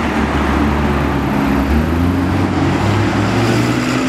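McLaren 12C supercar's twin-turbo V8 engine running steadily at low revs, its note rising a little about three seconds in.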